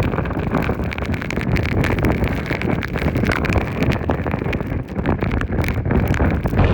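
Typhoon wind buffeting the microphone in a loud, heavy rumble, with many sharp irregular taps and clicks throughout.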